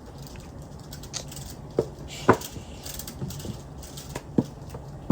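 Silicone pop-it fidget toy having its bubbles pressed one by one: scattered, irregularly spaced pops, the loudest a little past two seconds in.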